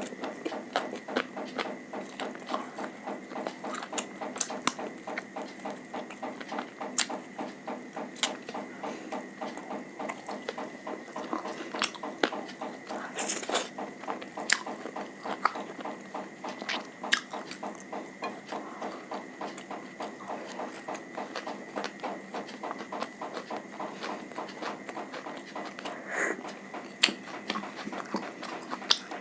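Close-miked eating sounds: continuous chewing and mouth noises, a rapid run of small clicks with louder, sharper clicks now and then.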